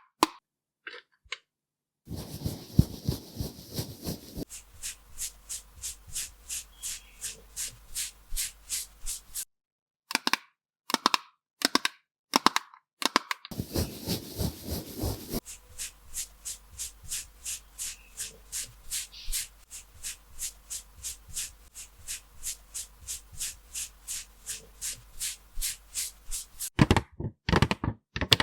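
A quick, even series of sharp taps or clicks, about three a second, in two long runs with a short break between them, over a faint steady hiss.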